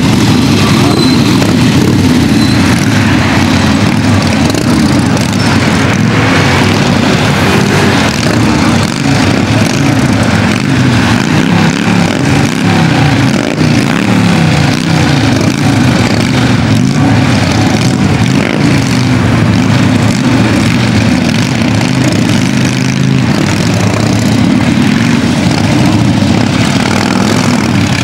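A group of cruiser motorcycles riding past, their engines running loudly, with the engine note rising and falling as they pass.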